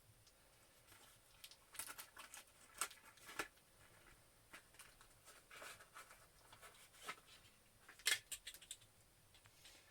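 Faint handling of a mail package being opened: scattered sharp clicks and short rustles, with the loudest cluster of clicks about eight seconds in.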